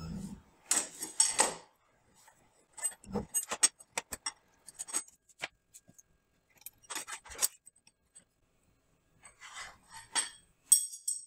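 Irregular metallic clinks, taps and short scrapes of wrenches and router collet parts as a router bit is installed and tightened, sped up about five times.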